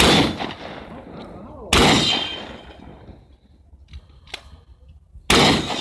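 Shotgun fired three times, once at the start, again under two seconds later and a third time near the end, each shot followed by a ringing echo that dies away over about a second. A faint click sounds between the second and third shots.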